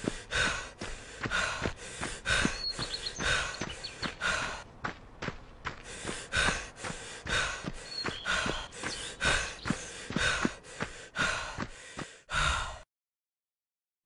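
A person's rhythmic panting breaths, about two a second, with a short lull about five seconds in; they cut off suddenly near the end.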